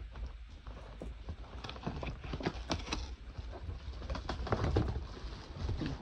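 Irregular clicks and knocks with rubbing and a low rumble: plastic parts being handled close to the microphone.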